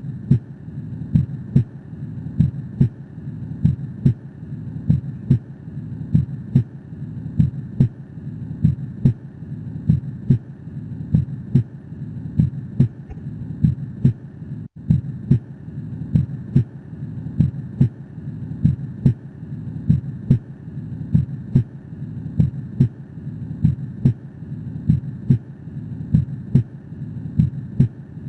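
Recorded heart sounds from a stethoscope auscultation: a steady, regular heartbeat a little faster than one beat a second, with a brief break about halfway through.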